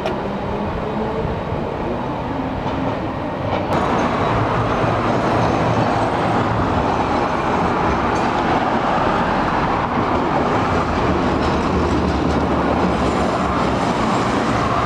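Vintage Milan Class 1500 'Ventotto' tram running past on street rails: a steady rumble of steel wheels on the track, louder and brighter from about four seconds in.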